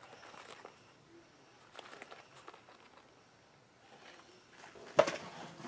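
Faint rustling and small clicks of unboxed items and packaging being handled, with a sharper click near the end.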